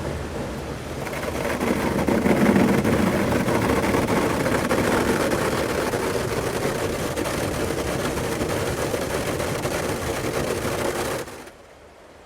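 Automatic car wash running: a dense rushing noise with fast rattling that builds about a second in and cuts off abruptly near the end, leaving only a faint hiss.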